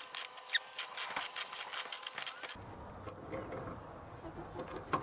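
Pliers gripping and twisting a seized brake caliper piston from a 1992 Toyota pickup to work it out of its bore: a quick run of small metallic clicks and scrapes through the first half, then a few fainter clicks.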